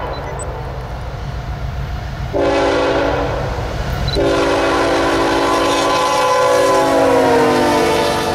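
Diesel freight locomotive's multi-tone air horn blowing: one blast about two and a half seconds in, then a long blast from about four seconds that drops in pitch as the locomotive passes close by. Under the horn runs the low rumble of the locomotive's engines and the train.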